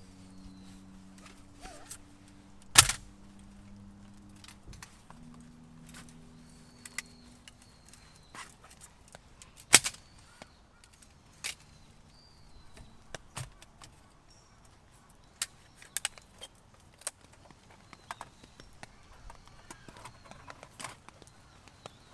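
Irregular sharp knocks and clicks, with two louder knocks about three seconds in and near ten seconds, over a faint steady background.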